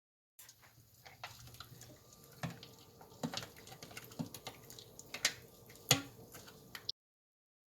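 Scattered light clicks and knocks of kitchen utensils against a pot, a few louder knocks among them, over a faint steady hum; the sound cuts in and cuts off abruptly.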